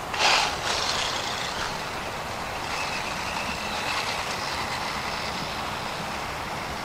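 DEERC 300e brushless RC monster truck being driven: a short loud burst as it takes off, then its brushless motor running with a thin high whine over rough tyre noise for a few seconds in the middle.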